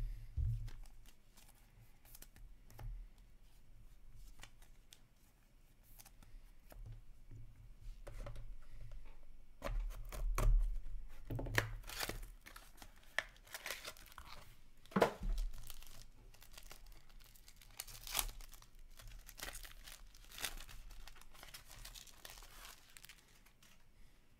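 Hockey trading-card pack wrapper being torn open and crinkled by hand, with cards handled and shuffled. It starts as faint handling clicks, then gets louder from about halfway with several sharp rips.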